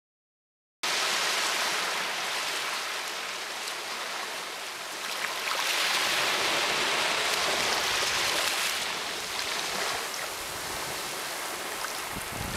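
Surf washing onto the island shore: a steady rush of water that starts abruptly about a second in, swells from about five seconds in and eases again after about nine seconds.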